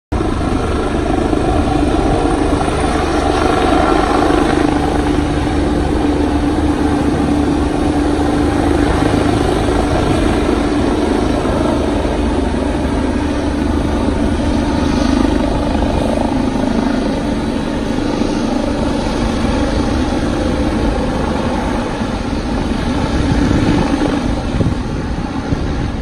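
Air ambulance helicopter lifting off from a rooftop helipad and climbing away, its rotor and engines running loud and steady.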